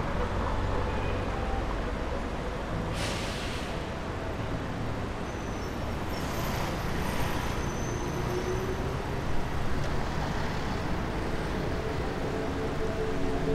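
Steady city road traffic: vehicles running past in a low, even noise. There is a short hiss about three seconds in and a softer one around six to seven seconds.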